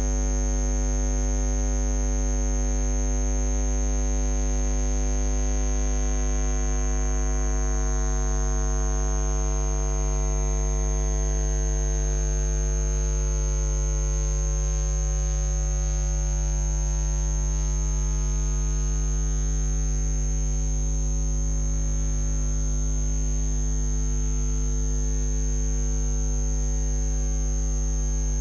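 Loud, steady electrical mains hum: a 50 Hz buzz with a stack of overtones and a thin high whine, and no voice. An electrical hum fault in the audio feed has filled the gap in the narration.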